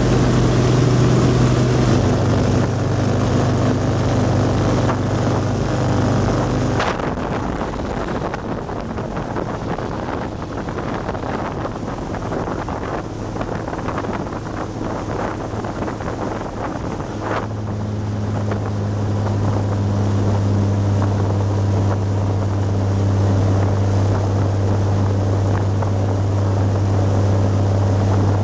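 Yamaha DY48H boat's Volvo Penta D9-575 diesel running at speed, a steady low drone under the rush of water and wind. The sound changes abruptly about 7 seconds in and again about 17 seconds in: in between the drone is fainter under the hiss and crackle of spray along the hull.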